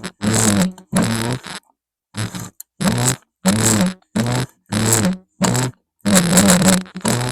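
Sailrite Fabricator sewing machine run in about ten short bursts of half a second each, every burst carrying an irritating low creak whose pitch bends up and down. The source of the noise inside the machine is not yet known, and grease and oil have not cured it.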